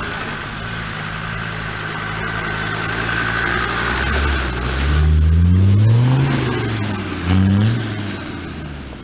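Land Rover Defender's engine running steadily off-road, with a steady high whine that stops suddenly about halfway. It then revs up twice, rising and falling in pitch: once for about two seconds, and once briefly near the end.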